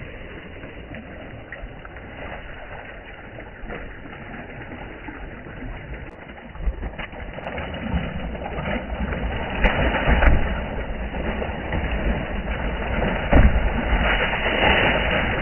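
Big fish thrashing and splashing in water in a boat's hold, with water from the hauled cast net. The splashing grows louder in the second half, with the hardest slaps near the middle and near the end.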